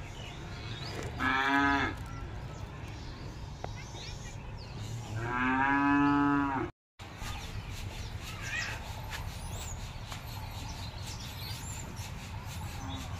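Two drawn-out, even-pitched animal calls, a short one then a longer one about four seconds later, over a steady low background rumble.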